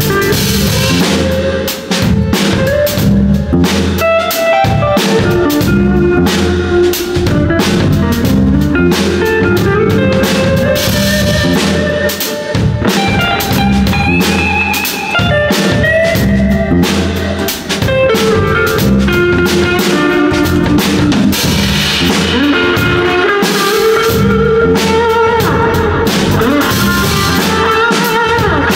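Live band playing an instrumental passage without vocals: drum kit and bass under a stepping melodic lead line.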